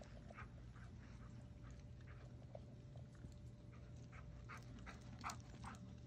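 A dog running on grass, making faint, quick, irregular sounds, loudest about five seconds in, over a low steady hum.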